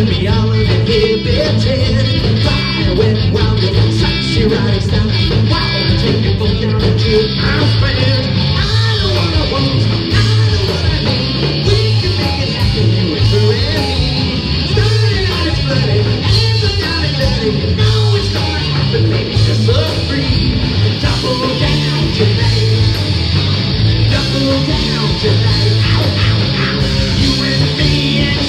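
Hard rock band playing live: electric guitar, bass and drums, with a lead singer.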